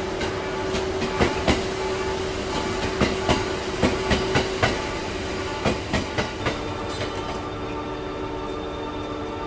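Wheels of a departing local electric train clacking over rail joints in uneven groups, over a steady hum. About six and a half seconds in the clacking stops and a steady multi-tone hum remains.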